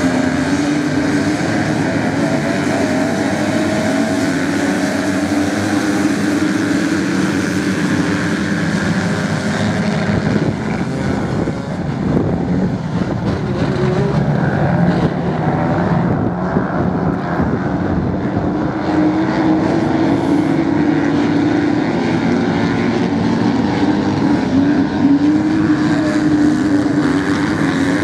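A pack of motocross bikes racing on beach sand: many engines blend into one continuous drone. Its pitch rises and falls as riders open and close the throttle.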